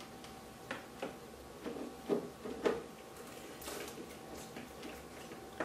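Handheld lime squeezer pressing lime halves, giving a handful of short, irregularly spaced clicks and squishes of the hinged press and the fruit.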